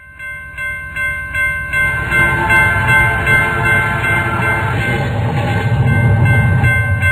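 Japanese railroad crossing (fumikiri) warning bell ringing in an even rhythm of about three dings a second, with a train rumbling past underneath that grows louder over the first two seconds.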